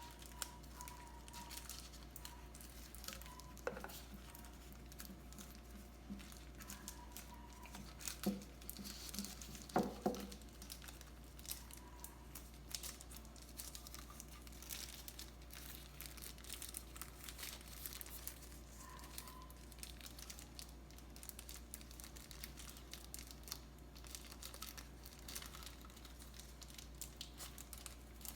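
Product packaging being handled: plastic and paper crinkling and rustling with many small clicks, and a few louder knocks about four, eight and ten seconds in. A faint steady hum runs underneath.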